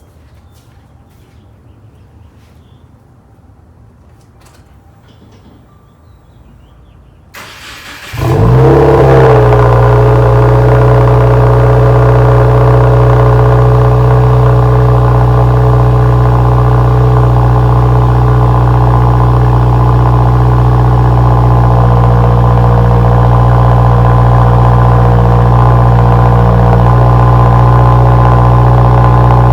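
Subaru WRX's turbocharged flat-four starting through a Remark non-resonated midpipe exhaust. After a few seconds of faint ticking it cranks and catches about eight seconds in, flares briefly, then settles into a loud, steady idle.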